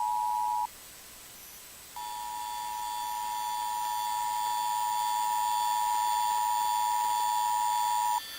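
Emergency Alert System two-tone attention signal, two steady tones sounding together just under 1 kHz, announcing an emergency alert. It sounds for about a second, drops out to a hiss for about a second, then resumes and grows gradually louder before cutting off shortly before the end.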